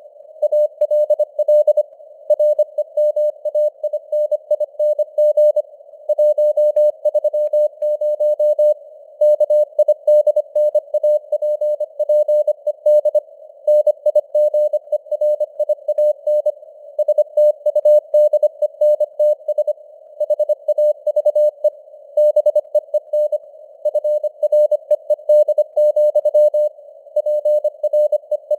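Morse code (CW) sent at 25 words per minute: a single mid-pitched beep keyed on and off in quick dots and dashes, with short pauses between words, over a narrow band of simulated radio hiss.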